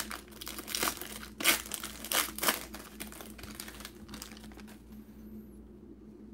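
Foil trading-card pack wrapper being torn open and crinkled in the hands: a handful of short rustling bursts over the first two and a half seconds, then quieter handling.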